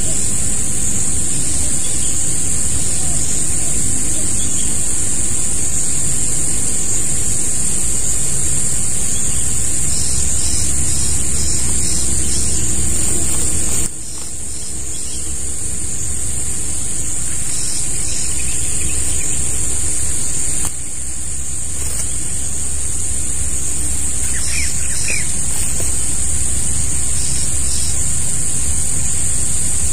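Outdoor rural ambience: wind rumbling on the microphone under a steady high-pitched hiss, with a few short, faint bird chirps.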